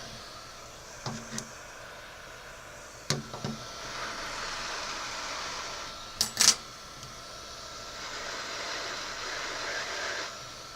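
Heat gun blowing in a steady hiss to melt the adhesive that seals the replacement lens glass, with a faint steady whine joining about three seconds in. Sharp clicks and taps from handling the camera and pressing tool come through it, the loudest pair a little past halfway.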